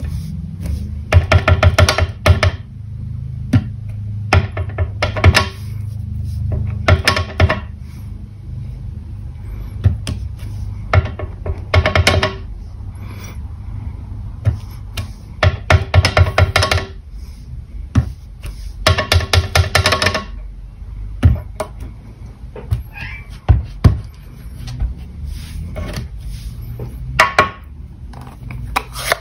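Clear acrylic stamping block with a rubber cling stamp tapped rapidly on an ink pad in short bursts of quick clicks, about six times, between pressings onto cardstock.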